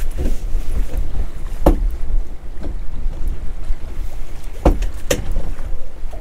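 Wind buffeting the microphone as a steady low rumble on an open boat at sea. A few sharp knocks stand out: one a little under two seconds in, and two close together near the end.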